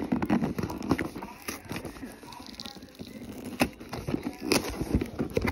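Hands opening a cardboard toy box: cardboard crackling and scraping close to the microphone, broken by several sharp taps and knocks.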